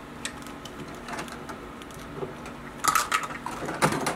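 Plastic toy knife working against a velcro toy cake's plastic pieces: scattered clicks and short crackles, with denser, louder clusters about three and about four seconds in.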